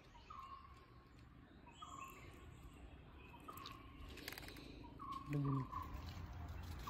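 A bird repeating a short, slightly falling call about every second and a half, with a few faint handling clicks.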